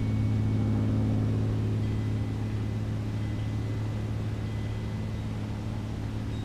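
Steady low mechanical hum of something running, such as an idling engine or motor, holding one pitch throughout. A few faint, short high tones sound over it.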